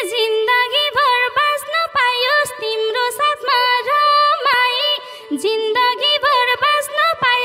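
Nepali folk band's instrumental interlude: a melodic lead line of short bending notes over a steady pattern of madal hand-drum strokes.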